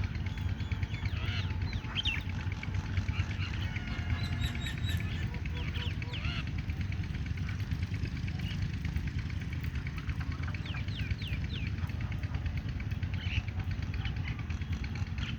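A flock of common mynas calling, a busy overlapping mix of short whistles, chatters and harsh squawks, over a steady low rumble.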